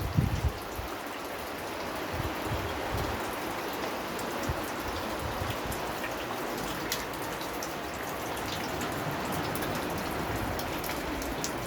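Steady rain falling, with many separate drops ticking on a surface over a continuous hiss. A brief low rumble sounds in the first half second.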